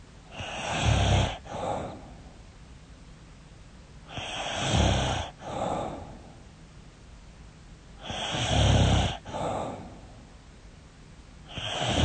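A woman snoring loudly, about one snore every four seconds, three times with a fourth beginning near the end. Each snore is a long, deep, rasping breath followed by a shorter second one just after. This is snoring that she suspects is a sign of sleep apnea.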